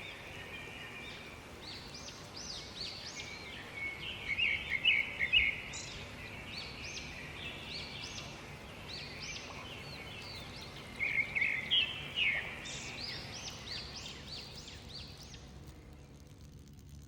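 Songbirds chirping and singing in rapid series of short high notes, with two louder bursts of calls a few seconds apart, over a faint steady outdoor background; the birdsong fades out near the end.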